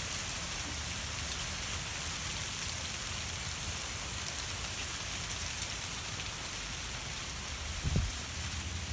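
Hail falling steadily in a hailstorm, a continuous hiss of many small hailstones striking the ground and surfaces. A single low thump near the end.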